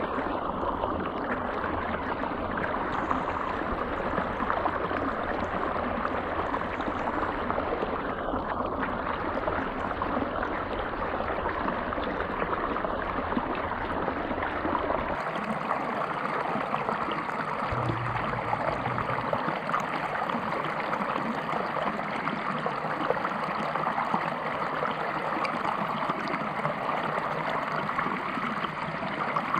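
River water running, a steady rush of flowing water. About halfway through, the deep rumble underneath drops away and the water sound continues a little thinner.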